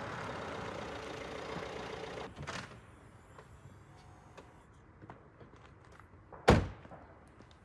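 A Fiat 500X rolls over a gravel road and stops after about two seconds, with a short knock as it halts. About four seconds later its door is slammed shut once, a single loud thud.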